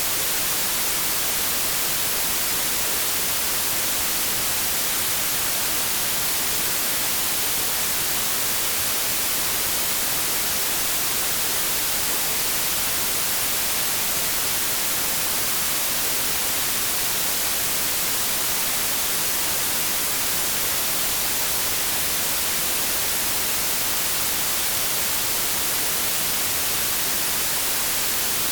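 Steady synthetic white noise: an even, unbroken hiss that is strongest in the high frequencies and thinner in the bass.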